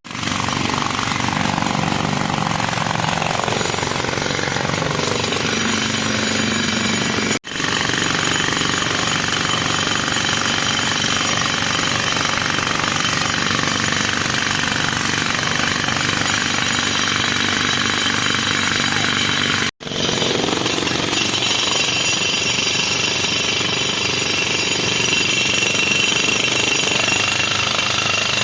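JCB JS215 tracked excavator working, a steady loud run of diesel engine and machine noise, broken off twice for an instant about 7 and 20 seconds in.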